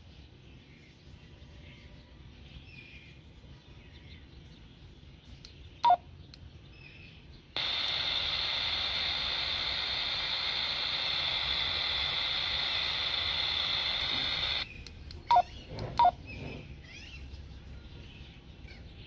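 Radtel RT-470X handheld radio on the aviation band: a short two-tone beep, then about seven seconds of steady static hiss from its speaker that starts and cuts off abruptly, then two more short beeps.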